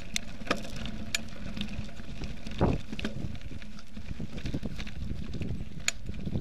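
Mountain bike ridden over a rough dry dirt track, heard from a camera mounted on the handlebars: a steady low rumble of ride noise with scattered sharp clicks and rattles from the bike, and one heavier thump about two and a half seconds in.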